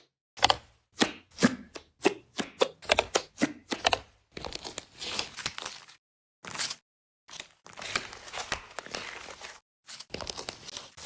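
Crisp tearing and crinkling sounds: a run of short sharp strokes, two or three a second, then two longer stretches of tearing noise of about two seconds each.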